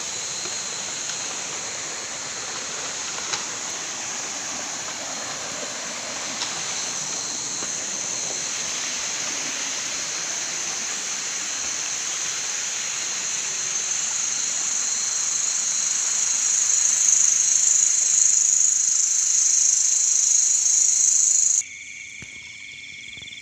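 Dense chorus of night insects, crickets and the like, as a steady shrill hiss that grows louder in the second half and cuts off abruptly near the end.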